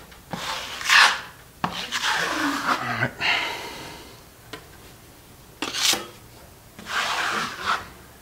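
Drywall knife scraping joint compound across a plaster wall in about five separate strokes, smoothing the compound over reinforcing fabric.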